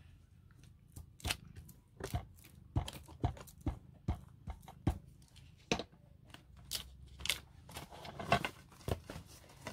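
Crinkly paper crackling and rustling as it is handled and pressed down, in irregular sharp clicks and taps, a few a second.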